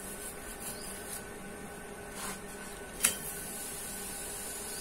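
Cooking on an iron tawa over a gas stove: a steady faint hiss and hum, with one sharp metallic clink about three seconds in as a utensil strikes the tawa.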